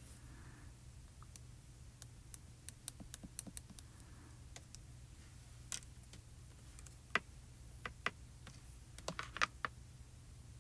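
Faint, irregular light clicks and taps of small craft tools and die-cut paper pieces being handled on a work table, over a low steady hum.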